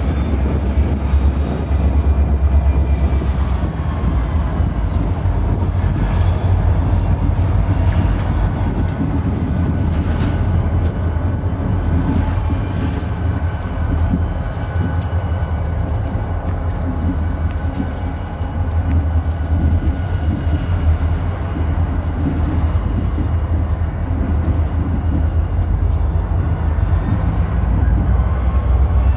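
Union Pacific geeps (EMD GP-series diesel locomotives) running as they roll slowly past, with a steady high whine that falls over the first several seconds and rises again near the end. Heavy wind noise on the microphone rumbles underneath.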